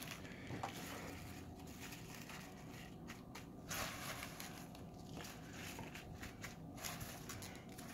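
Faint rustling with light crackles as hands drop and spread fresh spinach leaves over a lasagna in a disposable aluminium foil pan.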